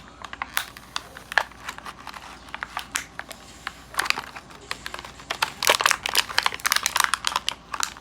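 Plastic toy packaging being handled and unwrapped: crinkling and a rapid run of small clicks and crackles, busiest about two-thirds of the way through.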